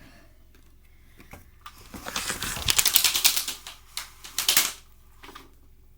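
Window blind clattering as it is moved: a dense run of rapid clicks and rattles lasting about two seconds, then a shorter burst.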